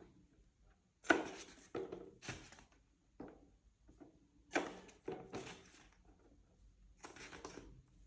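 Intermittent handling noises of latex modelling balloons being rubbed and worked, in about six short, irregular bursts.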